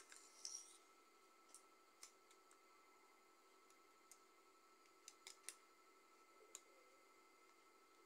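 Faint handling noises: a brief scrape as hand tools are pushed across a tile floor, then a few scattered light clicks as jumper cable clamps are handled.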